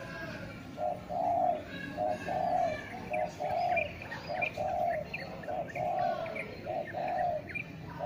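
Spotted dove cooing: a short note followed by a longer coo, the pair repeated about six times at an even pace. Faint high chirps of small birds sound in the background.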